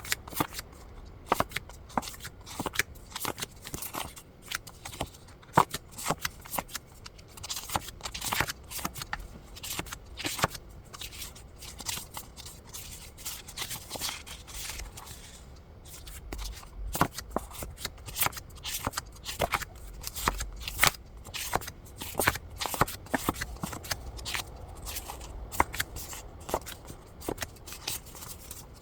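Paper and packaging being handled: irregular rustling, crinkling and light clicks as sheets are shuffled and moved about.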